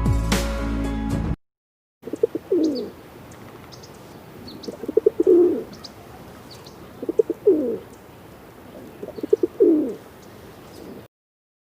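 A dove cooing four times, about every two and a half seconds: each call is a few short notes and then a longer falling coo. Faint high chirps of small birds sound in between.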